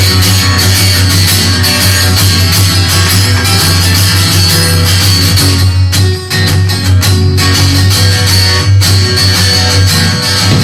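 Rock band music in an instrumental passage without vocals, with guitar to the fore. The sound drops out briefly about six seconds in.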